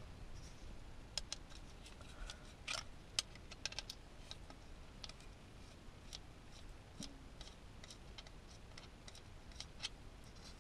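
Irregular small metallic clicks and ticks of a long hex driver turning a small bolt and nut by hand, most frequent in the first few seconds and again near the end.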